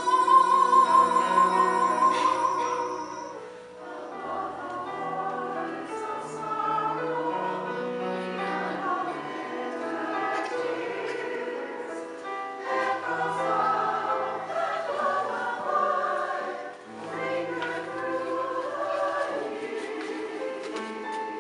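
Choir singing with several voice parts and a held bass line. A high voice holds a loud note through the first few seconds before the choir goes on.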